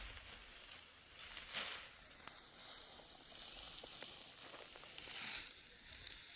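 Dry wheat stalks rustling and crackling as they are cut by hand with a sickle. Two louder swishing tears come about a second and a half in and again near the end.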